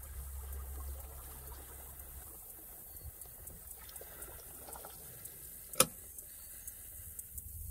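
Faint water lapping and trickling as a small round boat moves through shallow water. One sharp knock about six seconds in.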